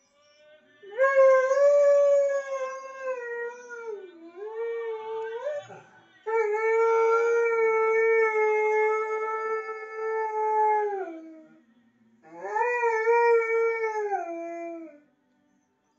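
Borzoi (Russian wolfhound) howling along to a tenor aria: three long drawn-out howls, the second the longest and the last one shorter, each sliding down in pitch as it ends.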